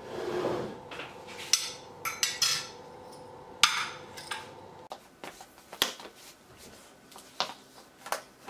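Scattered clicks, clinks and knocks of small household objects being handled, the loudest about three and a half seconds in, then sparser and softer.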